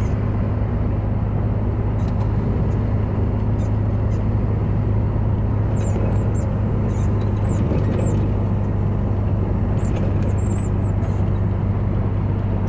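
Steady low drone of a vehicle's engine and tyres on a wet road, heard from inside the cab while driving in heavy rain, with scattered faint ticks.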